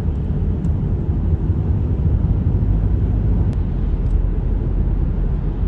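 Steady low rumble of road and engine noise inside a moving Ford Mustang convertible's cabin, on a wet highway.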